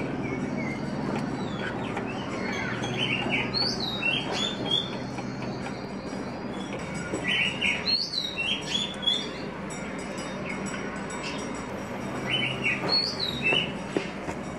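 A songbird singing a short chirping phrase three times, about four to five seconds apart, over a steady low hum.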